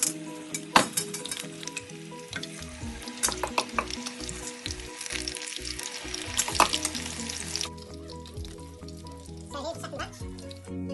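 Battered corn fritters deep-frying in hot oil in a saucepan: a steady sizzle full of crackles and sharp pops, which drops away about three-quarters of the way through.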